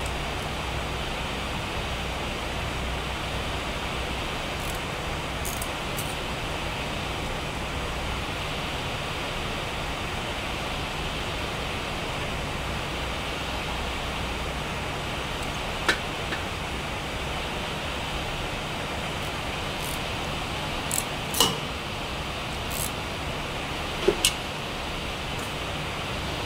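Steady background hiss with a low hum, broken by a few sharp metallic clicks from a crimping tool pressing wire terminals, the last ones in quick pairs near the end.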